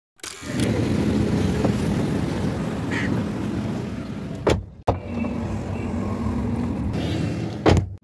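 Car engine running steadily, heard from inside the cabin, with a sharp knock about halfway through and another near the end.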